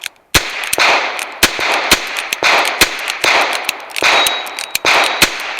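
Ruger Wrangler .22 LR single-action revolver fired in a quick string of shots, each sharp crack followed by a short ringing echo, the shots coming about a second or less apart.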